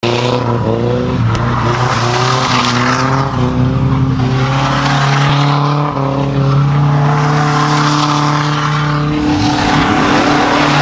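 Nissan 240SX drifting: the engine runs at a fairly steady pitch under load while the tires squeal as the car slides sideways.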